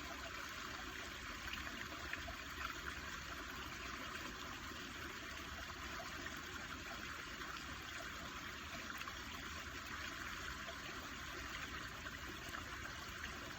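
Running water trickling steadily, with an even splashing hiss that does not change.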